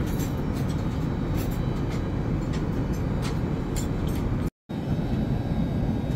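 Steady low drone of an Airbus A380's cabin in flight, from engines and airflow, with a few faint clicks. It cuts out completely for a moment about four and a half seconds in.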